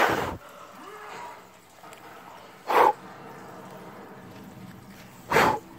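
A puppy making three short, sharp, noisy sounds, about two and a half seconds apart.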